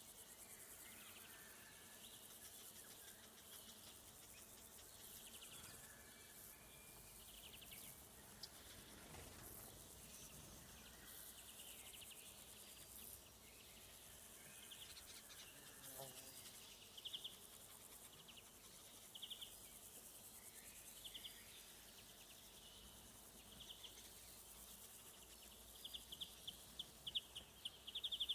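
A faint woodland insect chorus: crickets chirp in short pulsed trills over a thin, high, steady insect hiss, the chirps coming more often and louder in the last third. Faint, distant bird calls drift in and out in the first half.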